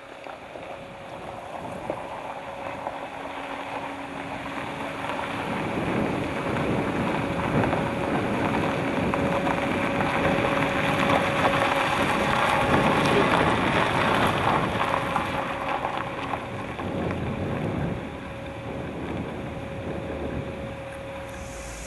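1955 Chevrolet Bel Air driving slowly up a gravel driveway, its engine running and tyres crunching on the gravel. It grows louder over the first several seconds as the car approaches, then drops off a few seconds before the end as the car pulls in.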